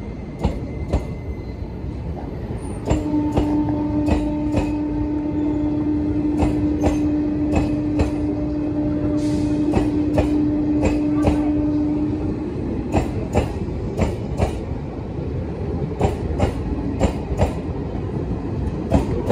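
ICF passenger coaches rolling past, their wheels clicking over the rail joints in quick groups over a steady rumble. From about three seconds in until about twelve, a steady low whine with fainter overtones sounds over it.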